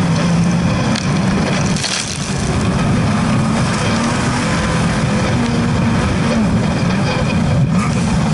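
Off-road race buggy's engine running hard at high revs, its pitch shifting as it pulls, with a brief dip about two seconds in. Flying dirt and stones clatter against the car.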